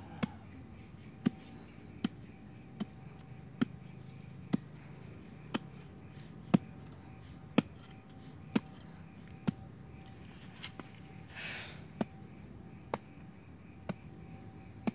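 A small hand tool digging into soil, knocking in about once a second, over the steady high chirring of night crickets.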